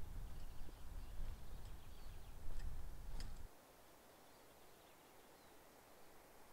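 Outdoor woodland ambience: faint, scattered bird chirps over a low rumble that cuts off abruptly about three and a half seconds in, leaving quieter air with the occasional chirp. A single sharp click a little after three seconds.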